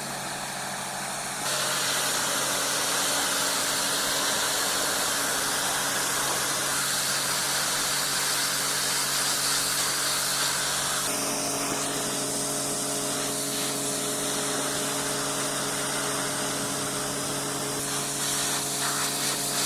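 Pressure washer running: a steady motor hum under the hiss of the high-pressure water jet blasting moss off a concrete step. The hiss gets louder about a second and a half in and changes tone about halfway through as the jet moves over the surface.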